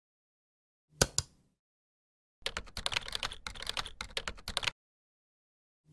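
Sharp clicks: a double click about a second in, a run of rapid clicking lasting about two seconds, then another double click at the end, with dead silence between.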